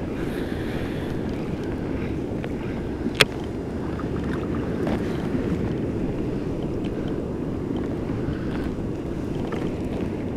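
Steady wind buffeting the microphone over the low rush of open water around a kayak, with a single sharp click about three seconds in.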